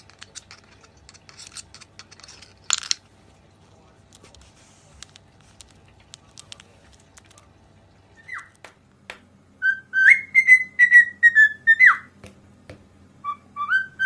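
Cockatiel whistling: a run of clear whistled notes that rise and fall, the loudest stretch in the second half, then a couple of rising notes near the end. Before that there are only small taps and one brief rasp about three seconds in.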